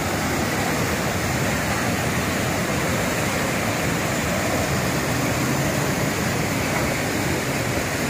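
Fast mountain river rushing over a weir: a steady, unbroken noise of white water.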